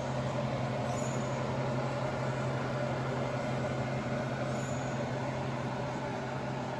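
A steady low hum over an even rumbling noise, like a running motor or vehicle, unchanging throughout.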